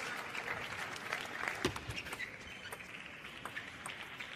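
Arena audience applauding briefly after a table tennis point, fading out about halfway through, with scattered sharp clicks.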